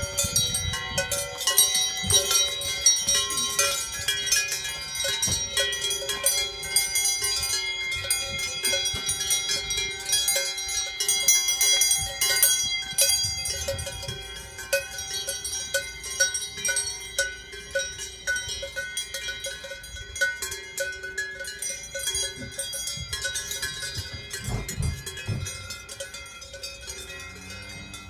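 Cowbells on a herd of dairy cows clanging and ringing continuously as the cows run out onto pasture, growing fainter as the herd moves off.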